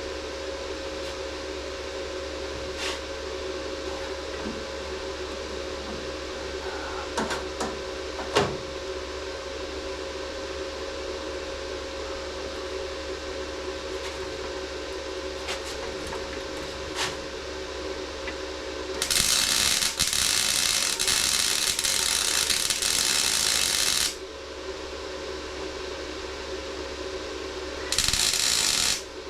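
MIG welder arc crackling on sheet-metal body panel in two bursts: one of about five seconds past the middle and a short one of about a second near the end. A steady fan-like hum and a few light clicks run beneath.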